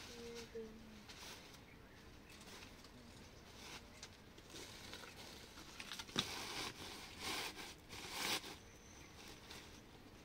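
Rustling from cloth sacks and bags being handled, in several short bursts between about six and eight and a half seconds in, with one sharp click about six seconds in.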